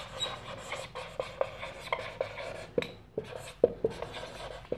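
Whiteboard marker squeaking and scratching across a whiteboard in short, irregular strokes as words are handwritten.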